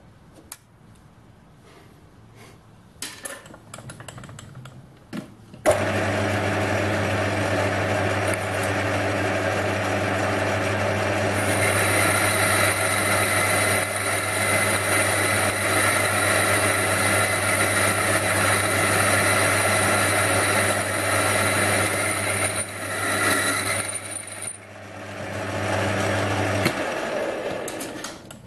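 A few light clicks, then a small metal lathe starts about six seconds in and runs with a steady motor and gear hum, its four-jaw chuck spinning. A boring tool cuts dry inside the part, opening the bore, and adds a high thin whine through the middle of the run. The lathe stops shortly before the end.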